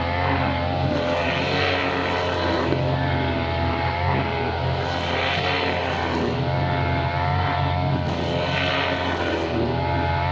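Two-stroke brushcutter engine running at high speed, its pitch wavering up and down, with a swell every few seconds as it swings through the grass.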